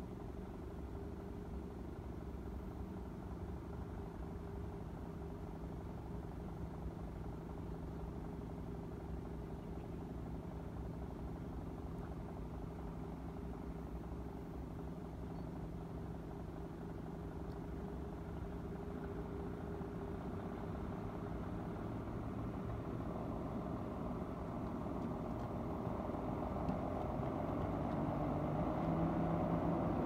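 A vehicle engine running steadily, growing louder over the last several seconds as it comes closer.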